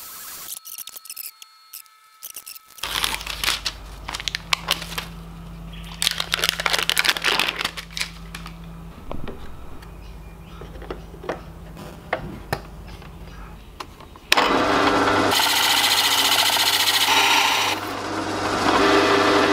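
Clicks and knocks of a clear acrylic sheet being handled, over a low hum. About fourteen seconds in, a drill press starts and runs a hole saw through the 3 mm acrylic panel with a loud, steady cutting sound.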